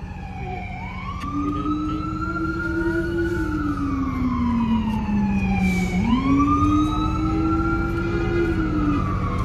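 Emergency-vehicle siren wailing in slow up-and-down sweeps: it climbs about a second in, sinks slowly to a low point about six seconds in, then climbs sharply again. A second, lower tone follows the same sweeps, over a steady low rumble of street traffic and bus engines.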